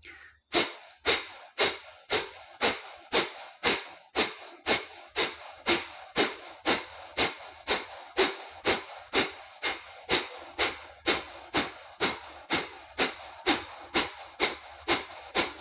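Kapalbhati breathing: a man forcing air out through both nostrils in short, sharp hissing puffs, about two a second, in an even rhythm.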